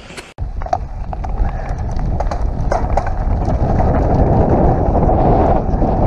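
Mountain bike descending a dirt and gravel trail, heard from a helmet-mounted camera: wind buffeting the microphone with the rattle and clatter of tyres and frame over stones. It starts abruptly about half a second in and builds as speed picks up.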